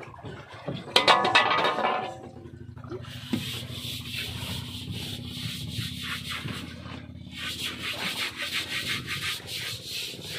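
Uneven rubbing and scraping strokes over a steady low hum, with a brief louder pitched sound about a second in.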